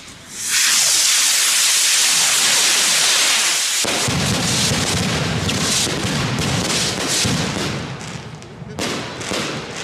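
Fireworks going off: a loud hiss for about three seconds, then a fast string of shots launching and bursting with crackles, easing off near the end.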